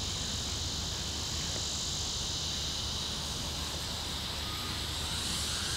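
Steady high-pitched insect chorus, crickets or cicadas, over a low rumble.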